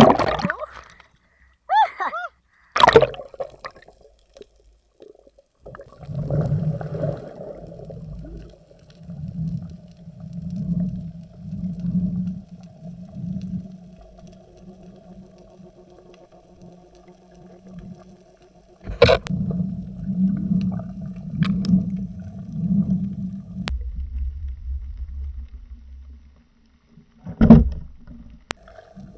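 Muffled underwater sound heard through a diver's camera: a steady hum with low swells of water noise rising and falling about once a second. A few sharp clicks come through, and the hum stops a few seconds before the end.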